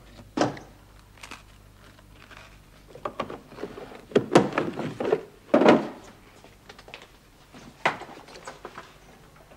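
Handling noises at a counter: a string of thumps, knocks and clatters as things are picked up and set down, the loudest a little past the middle, with a sharp click near the end.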